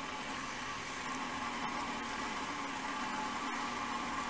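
A Harbor Freight 1x30 bench belt sander running steadily, with a steel knife blank held against the moving belt to grind its profile.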